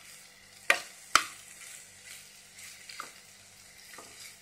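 A spoon stirring fried flat beans in a stainless steel pan over a faint sizzle, knocking sharply against the pan twice, a little under a second in and again about half a second later, then tapping it lightly twice more near the end.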